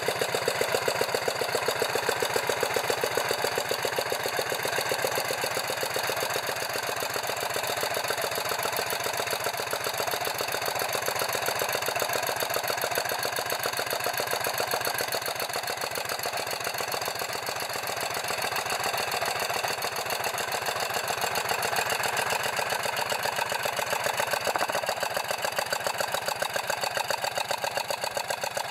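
Mazda CT 1147cc air-cooled engine running steadily on a test stand, with a fast, even beat of firing pulses.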